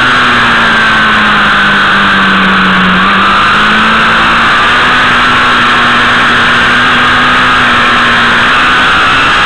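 Motorcycle engine running at speed through a series of curves under heavy wind rush. Its pitch sags about three seconds in, then picks up again and holds.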